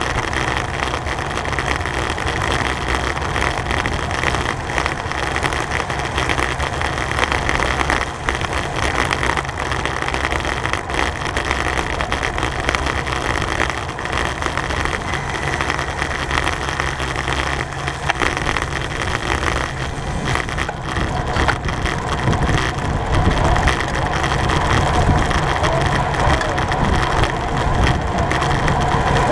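Wind rushing over the microphone of a camera on a bicycle being ridden, with tyre and road noise: a steady low rumble and hiss.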